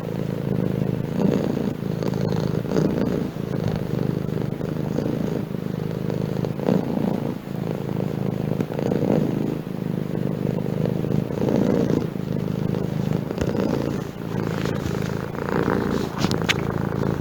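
Domestic cat purring steadily, the purr swelling and easing every two to three seconds with each breath in and out.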